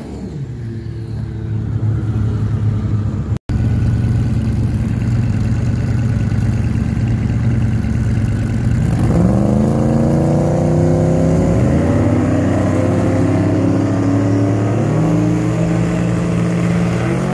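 A race car's engine running down the track, its note falling, then a drag car's engine idling close by at the starting line. About nine seconds in it begins revving up in several rising steps and holds at high revs, ready to launch.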